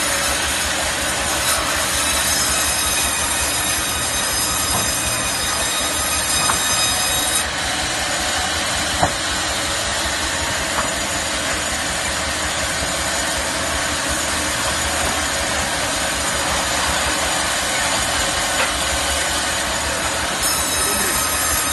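40-inch vertical log band saw running and cutting a log as the manual carriage rolls along its steel rails, a steady harsh mechanical noise. A high whine sounds through the first seven or so seconds, stops, and returns near the end, and there is a single sharp knock about nine seconds in.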